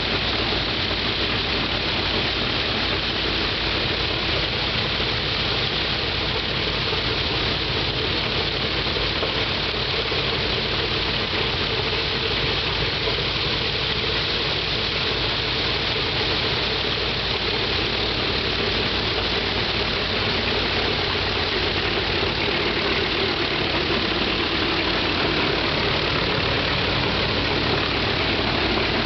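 Shvetsov ASh-82T fourteen-cylinder twin-row radial engine of an Ilyushin Il-14T running steadily with its propeller turning, on the engine's first run.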